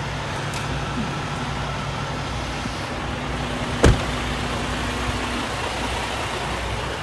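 Steady rumble of idling truck engines, with a single sharp click about four seconds in.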